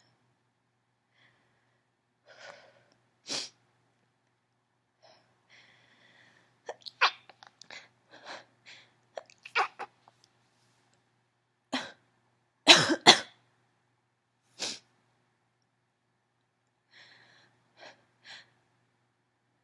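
A woman's allergy sneezing fit: a string of short, mostly stifled sneezes with sniffling between them. The loudest two sneezes come close together a little past the middle.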